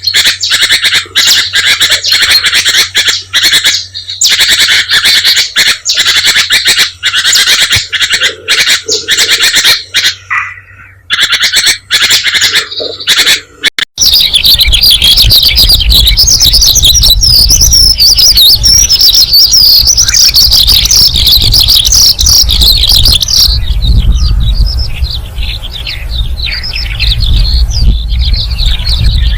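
Birds calling loudly: a dense run of harsh, rapid squawks and chirps, then a sudden change about halfway through to a chorus of high, quick twittering chirps over a steady low rumble.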